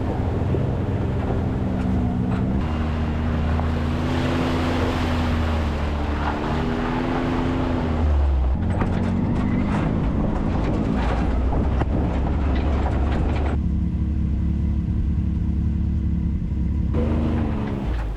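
Can-Am Maverick X3 side-by-side's engine running while driving, its revs rising and falling, under a rushing hiss that drops away about 13 seconds in.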